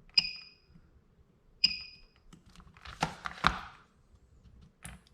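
PCB spot welder firing two spot welds on 0.1 mm nickel strip, about a second and a half apart. Each is a sharp snap followed by a brief high tone. About three seconds in comes a short burst of scraping and handling noise.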